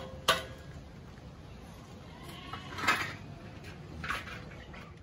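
An animal calling, once about three seconds in and more weakly near the end, after a sharp knock near the start.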